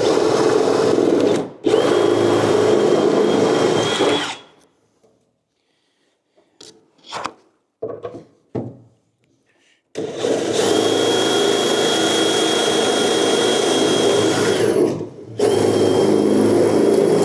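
Hand-held power drill running in four bursts of a few seconds each, settling into a steady high whine once up to speed, as holes are drilled through the steel body panels for rivets. A few light knocks and clicks come in the pause between the bursts.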